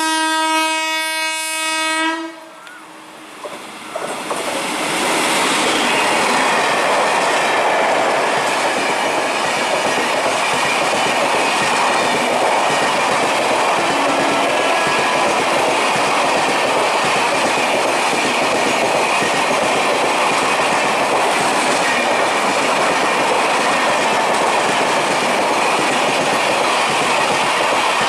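Train horn sounding one long blast of about two seconds, then an express train passing at speed, a loud steady rush of wheels on rail.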